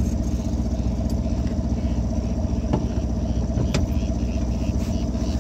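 A boat's engine running steadily at low speed, with two light clicks about three and four seconds in.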